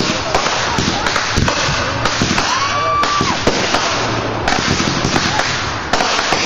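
Aerial fireworks going off: a rapid run of bangs and crackling star bursts, one after another.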